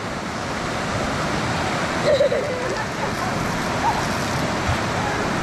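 Mountain river running, a steady rush of moving water, with a short faint voice about two seconds in.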